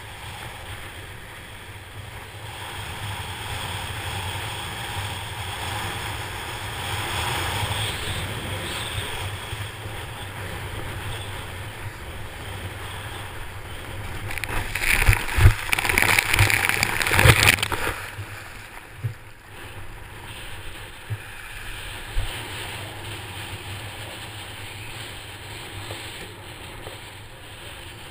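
Kiteboard skimming over shallow water, with a steady rush of water and wind buffeting the camera microphone. About halfway through comes a loud burst of splashing and spray with a few thumps, lasting some four seconds, as the board spins out.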